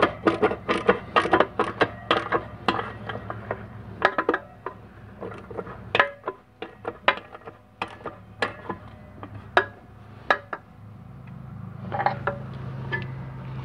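Hand ratchet clicking in short runs as it tightens a transmission clutch spring compressor down to expose the snap ring groove. The clicks come fast at first, then thin out and stop about ten seconds in, and a low steady hum rises near the end.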